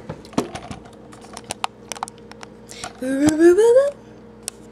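Spice jars and shakers being picked up and handled: a string of light clicks and knocks, then a short tone rising in pitch about three seconds in, the loudest sound.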